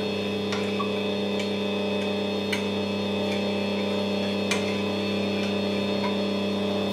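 Electric stand mixer running steadily, a constant motor hum, as it mixes dry flour, salt and sugar. A few light clicks of a spoon against a ceramic bowl come over it as yeast is stirred into milk.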